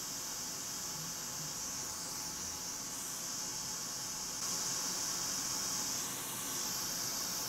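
Hot air rework station blowing a steady hiss onto a MOSFET to melt its solder and desolder it, a little louder from about halfway.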